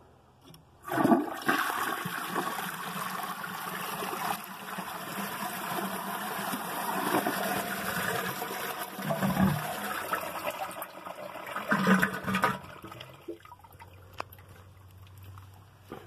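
A tower of stacked toilets flushing: the top toilet's flush pours down through the bowls below, a loud rush of water starting suddenly about a second in. Near the end come two loud gurgling gulps as the bowls siphon out, and then the rush stops.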